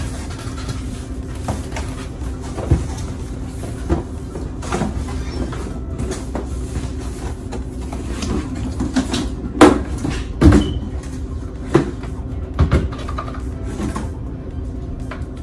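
Cardboard box and packaging handled while a small compact air fryer is unpacked: rustling with scattered knocks and thumps, the two loudest about ten seconds in, over a steady low hum.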